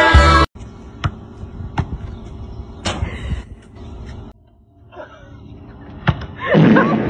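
A basketball thudding sharply several times, about five separate hits spread over a few seconds, then a person's loud yell near the end.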